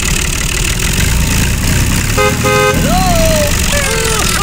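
Tractor engine running steadily as the loaded trolley is pulled along, with a horn tooted twice in quick succession a little over two seconds in. A few high pitched sounds that rise and fall follow near the end.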